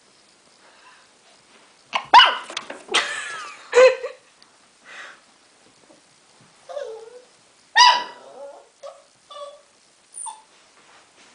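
Miniature schnauzer puppy barking and yapping in irregular bursts: a loud volley of barks about two seconds in, a single sharp bark near eight seconds, then a few smaller yips.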